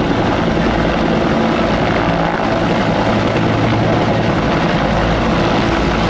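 Two military helicopters hovering low, their rotors and turbine engines running at a steady, even level.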